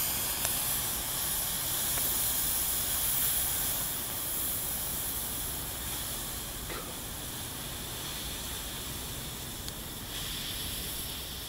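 Smoke bomb hissing steadily as it pours out smoke, slowly growing quieter.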